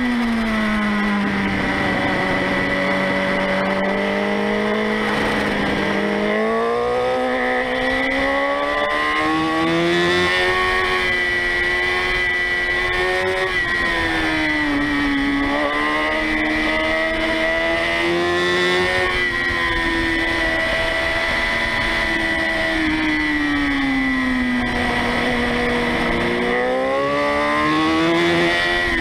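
Motorcycle engine heard from onboard, revving up and easing off as the bike accelerates out of and slows into bends, its pitch rising and falling several times. Wind and road noise run underneath, along with a steady high whine.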